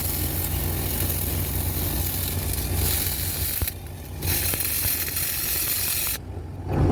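Electric welding arc sizzling and crackling over a steady low engine hum, the arc breaking off briefly twice, a little before the middle and near the end.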